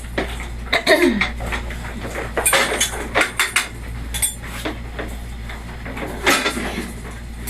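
Repeated clinking and clattering of hard objects, many sharp knocks in irregular succession, with a brief voice-like glide about a second in.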